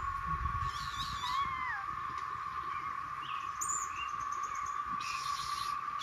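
Small birds giving scattered sharp chirps and a short gliding call, mobbing calls at a small monkey that ate their eggs. A steady high-pitched drone runs underneath.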